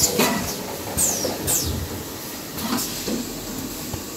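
Automatic kitchen towel roll packing machine running: steady machine noise with irregular sharp mechanical clacks and two short high squeals falling in pitch about a second in.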